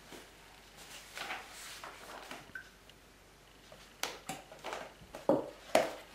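Milk poured from a paper carton into a glass, then the carton is set down on a wooden table with two sharp knocks about five seconds in.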